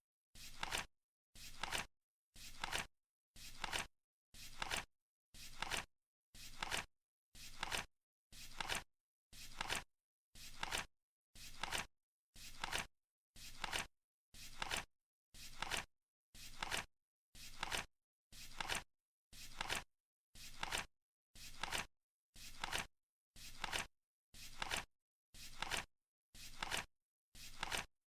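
Flip-clock sound effect: the card flaps turning over once every second, each flip a short rustle of about half a second that grows louder and stops abruptly, with silence between.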